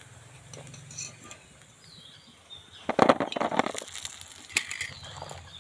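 Hard, freshly fried carrot gaja clattering against each other and a metal wire skimmer as they are tipped onto a plate, a burst of knocks about three seconds in with a few clicks after. The hard, rattling sound is the sign that the gaja have fried firm and crisp.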